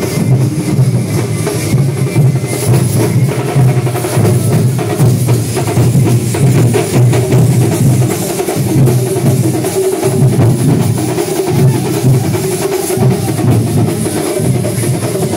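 Festival drum troupe drumming loudly and continuously in a steady pulsing rhythm.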